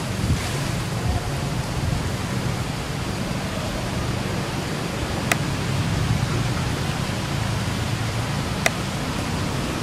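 Steady broadband hiss-like background noise, with two brief sharp clicks about five and eight and a half seconds in.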